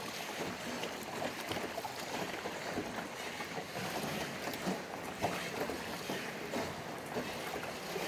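Steady wash of water around a small rowed river boat as it glides into a cave.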